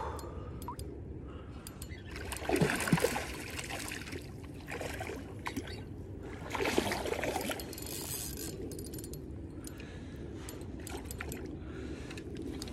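Water splashing as a hooked rainbow trout thrashes at the surface close to the bank, in two louder spells about two and a half and seven seconds in, over a steady rush of moving creek water.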